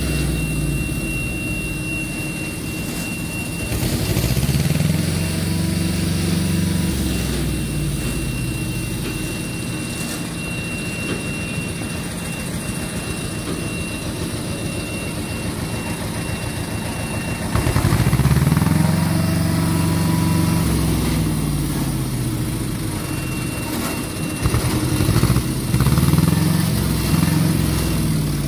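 Diesel engine of a heavy-haulage rig moving a train carriage on a multi-axle low-bed trailer. It runs steadily and revs up and back down about three times as the rig manoeuvres slowly.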